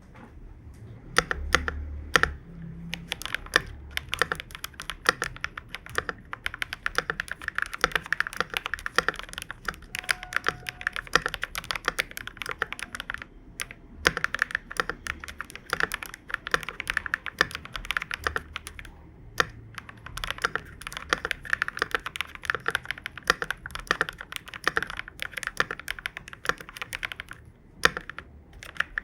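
Typing on an FLEsport FL980 mechanical keyboard with lubed and filmed KTT Strawberry switches in a steel plate, PBT keycaps and foam-damped case. Fast, continuous keystrokes with a few brief pauses. Its stabilizers are unmodified stock ones, which the owner says tick.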